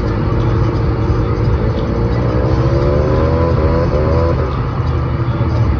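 Lifted pickup truck's engine running hard in a mud hole, with a deep steady rumble; about a second and a half in, the revs climb for a few seconds, then drop back.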